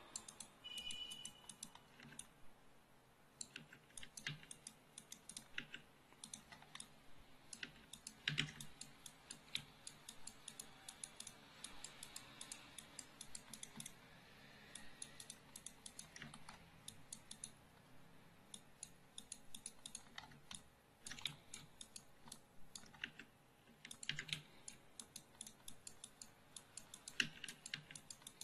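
Faint, irregular clicking and tapping of a computer keyboard and mouse, scattered clicks with short pauses between them.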